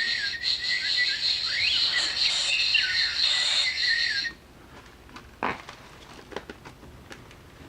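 A recorded nature sound played through a children's sound book's small speaker: a high-pitched buzzing and whistling with warbling chirps, which cuts off suddenly about four seconds in. A few faint clicks follow, typical of the book being handled and its buttons pressed.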